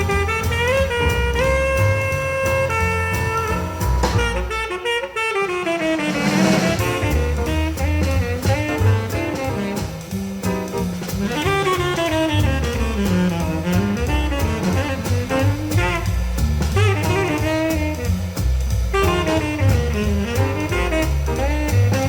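Jazz recording with a saxophone melody over bass and drums, played back through a 300B triode single-ended tube amplifier. The amp is run at full power, with a little distortion.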